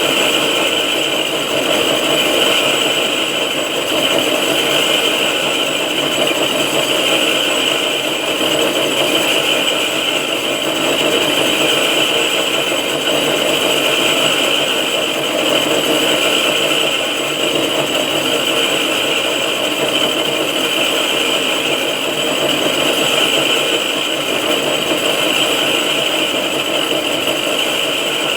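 6R12 vertical knee-type milling machine running steadily while milling a cylinder head, with a continuous high-pitched cutting whine over the motor and gearbox drone.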